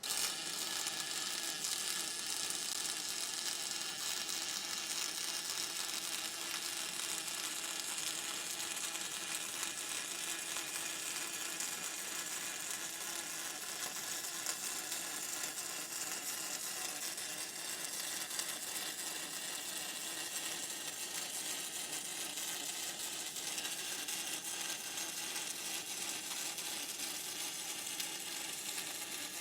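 MIG welder running one long continuous bead on aluminium: a steady hiss that starts abruptly as the arc strikes.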